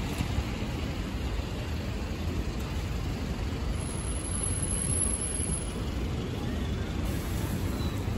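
Steady city street noise on wet roads: a low traffic rumble from buses and cars with a hiss of tyres, even throughout with no single event standing out.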